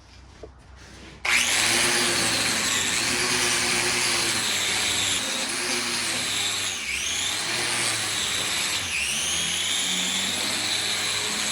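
Angle grinder grinding the edges of steel plate, starting abruptly about a second in. Its high whine dips in pitch three times as it bears down on the metal and recovers each time.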